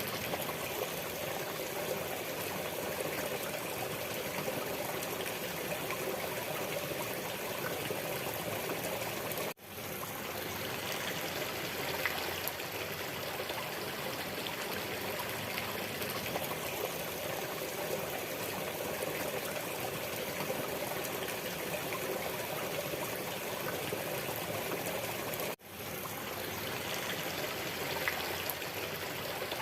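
Waterfall rushing steadily, an even wash of falling water. It drops out for a split second twice, about ten and twenty-six seconds in, then resumes.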